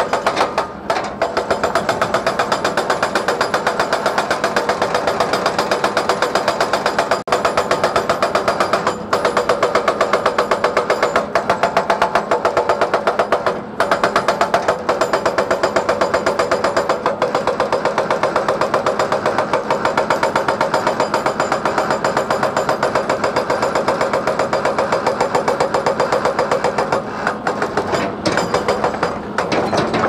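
Excavator-mounted hydraulic rock breaker hammering its chisel into rock: rapid, evenly spaced blows in a steady run, broken by a few brief pauses.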